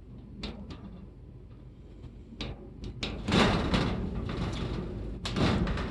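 A combination lock being worked on a shed door: a few sharp clicks, then louder rattling scrapes about three seconds in and again near the end as the lock and door are pulled.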